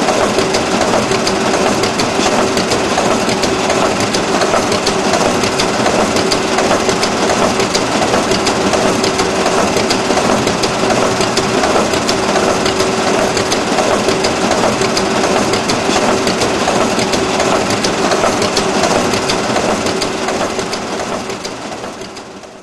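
Steady crackling, grinding machine noise over a constant hum, typical of an office photocopier running. It fades out near the end.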